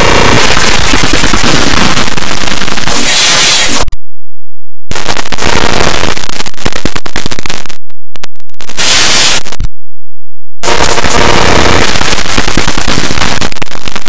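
Heavily distorted, clipped cartoon soundtrack turned into a harsh, crackling wall of noise by an audio-effects edit. It stops dead for about a second roughly four seconds in, stutters and drops out again around eight to ten seconds in, then comes back just as harsh.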